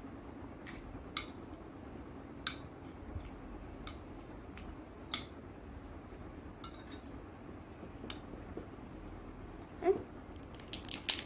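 Metal spoon clicking and scraping in a plastic bowl as spicy potato filling is scooped into pani puri shells, a handful of separate small clicks with a tight cluster near the end. A child's short vocal sound comes shortly before the end, the loudest moment.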